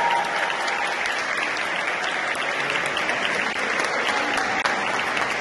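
Audience applauding steadily, a dense patter of hand claps, as the music ends.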